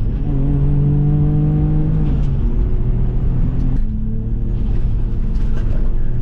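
Turbocharged Subaru EZ30 flat-six engine pulling on the road. The engine note holds, falls about two seconds in, and dips briefly near four seconds, with a faint high whistle rising twice.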